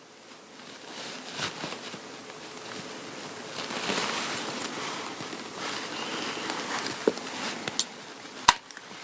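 Rustling of materials being handled, louder about four seconds in, then a few sharp clicks near the end, the last one the loudest.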